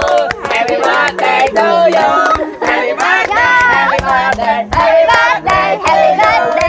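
A group of people singing together while clapping their hands along.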